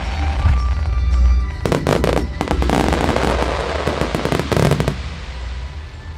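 Aerial fireworks crackling: a dense, rapid run of small sharp pops from about one and a half seconds in until about five seconds in, with music playing alongside.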